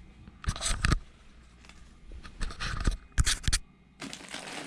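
Hand tools and other items being rummaged through and handled in a tool bag: a few short bursts of rustling, scraping and light knocking.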